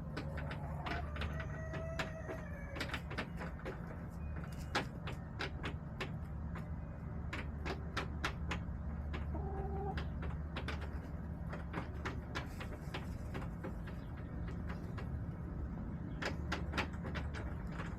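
Backyard hens tapping on hard surfaces in a plastic coop, many sharp irregular taps typical of pecking at feed and plastic. A few soft short clucks come near the start and about halfway through, over a steady low hum.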